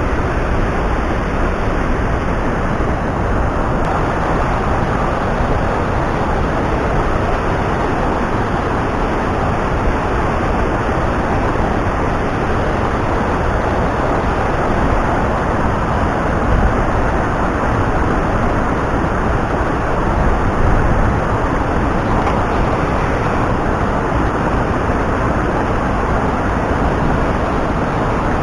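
Steady rush of a mountain stream, a constant wash of running water with no breaks.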